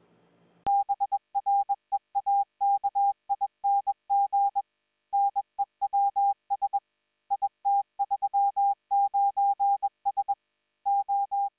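Morse code sent as a single steady beep tone, keyed on and off in short dots and longer dashes at a quick pace, starting about a second in, with brief pauses between groups.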